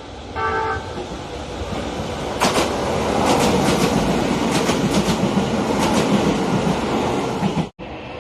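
Nagano Electric Railway local train: a short horn blast ends just under a second in, then the train runs past with rising rumble and sharp clicks of wheels over rail joints. The sound cuts off abruptly near the end.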